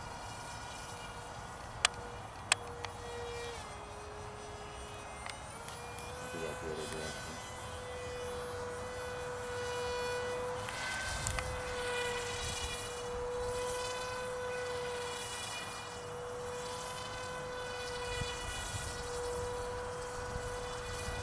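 Electric motor and propeller of a radio-controlled foam parkjet model cruise missile whining overhead at a steady pitch, easing slightly lower about four seconds in and coming back up about two seconds later. Two sharp clicks near the start are the loudest sounds.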